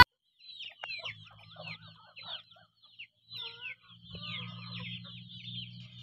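Farmyard chickens calling: a steady stream of quick, falling high chirps mixed with some lower clucks, over a faint low hum.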